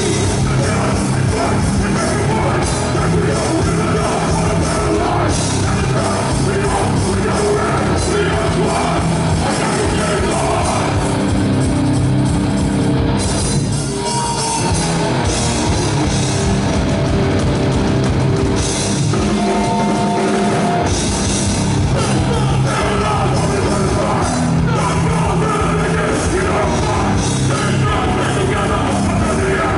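Live rock band playing loud: electric guitars, bass guitar and drum kit, with two vocalists singing into microphones.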